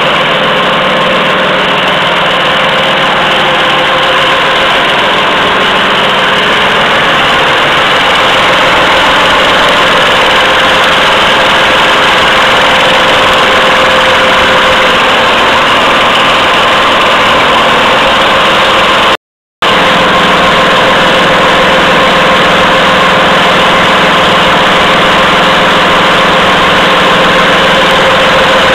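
Automatic pocket tissue making machine running at speed: a loud, steady mechanical din with constant tones in it. It cuts out for a split second about two-thirds of the way through.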